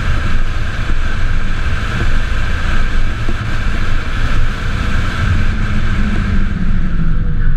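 Wind rushing over the onboard microphone with road rumble from a solar car driving at speed on a race track, a steady loud rush with no engine note. A faint tone joins in during the last couple of seconds.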